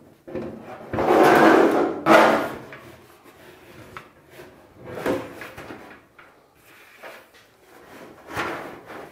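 Metal dryer drum scraping and knocking against the sheet-metal cabinet sides as it is lowered into the dryer. The loudest scrape runs about a second in, with a sharp knock at about two seconds, and fainter scrapes follow around five and eight and a half seconds.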